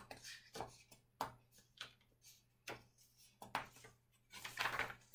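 Paperback picture book being handled: a few soft, scattered taps and clicks, then a longer paper rustle about four and a half seconds in as a page is turned.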